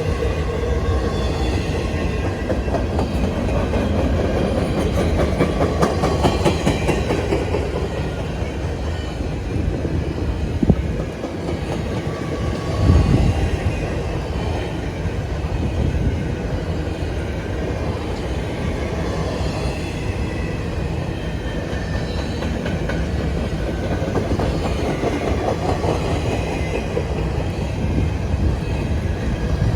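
Long freight train rolling past, its wheels clacking steadily over the rail joints, with two louder thumps about a third of the way through.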